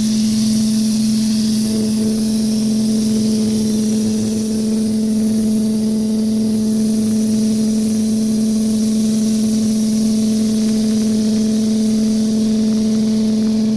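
Pressure washer running steadily: a constant motor-and-pump hum with the hiss of the water spray on concrete.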